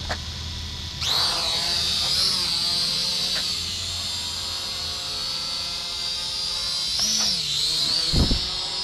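Kaptur GPS II quadcopter's electric motors and propellers, turning slowly at first, then spinning up sharply about a second in to a steady high whine as the drone takes off. The pitch wavers near the end, and a brief thump is heard just after.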